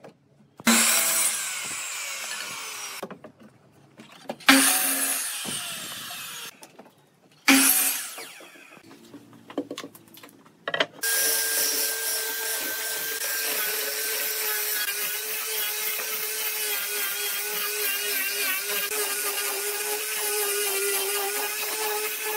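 A sliding miter saw cuts a wooden board three times; each cut starts sharply and dies away. About eleven seconds in, an angle grinder with a sanding disc starts running steadily on a wooden beam, with a constant whine.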